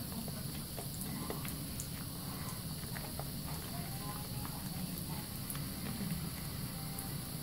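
Faucet running steadily into a sink while soapy hands rub and squeeze a thick bar-soap lather, giving small wet squelches and pops throughout.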